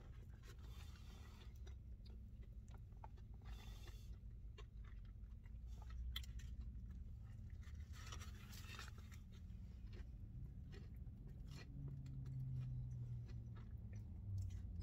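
A person biting into and chewing a crispy fried chicken sandwich up close, with small crunches and wet mouth clicks, over a low steady hum.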